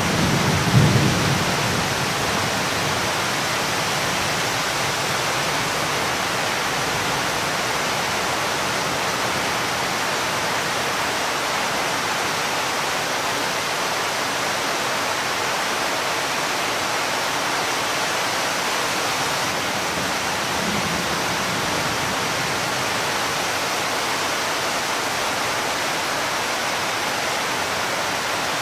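Heavy thunderstorm rain falling, a steady even hiss. The tail of a low thunder rumble dies away in the first second or two.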